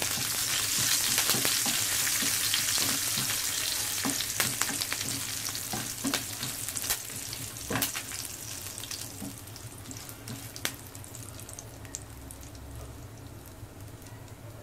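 Fresh curry leaves, cumin seeds and dried red chillies sizzling and spluttering in hot ghee for a tadka, stirred with a spatula in a steel pan. The sizzle is loudest at the start and dies down steadily, with scattered pops and spatula scrapes against the pan.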